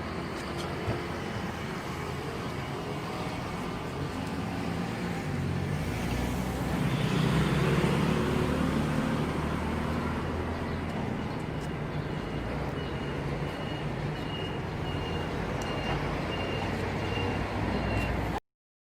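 Street traffic noise, motor vehicles running and passing steadily, with a vehicle growing louder about seven seconds in and then easing off. The sound cuts out abruptly just before the end.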